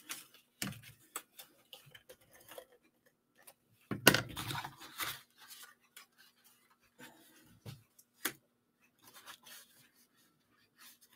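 Cardstock and patterned paper rustling and rubbing under hands as a paper sleeve is wrapped around a small card box and finger-pressed along its folds. Soft scattered rustles and taps, with a longer rustle about four seconds in and shorter ones around seven and eight seconds.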